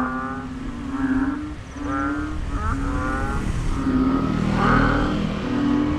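A chorus of frogs, several calling over one another, each giving a loud, low, cow-like call about once a second.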